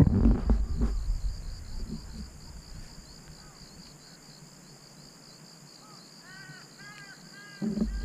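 Wind buffeting the microphone, dying away over the first two seconds and gusting back near the end. In the lull a bird calls a quick series of short, repeated notes, over faint, high, rapid chirping from birds in the distance.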